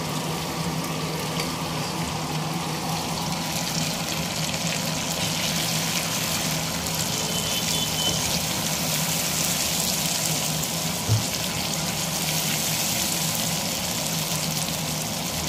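Chicken pieces frying in hot oil in a kadai, a steady sizzle that comes up fuller about four seconds in. A steady low hum lies under it, and there is a single knock about eleven seconds in.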